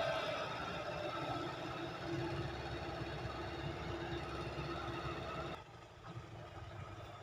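Heavy diesel machinery running steadily, with a wavering engine tone. The level drops suddenly about five and a half seconds in.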